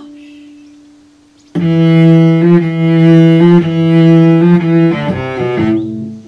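A bowed string instrument plays long held low notes from about a second and a half in, changing pitch about once a second, then a few quicker notes stepping down near the end.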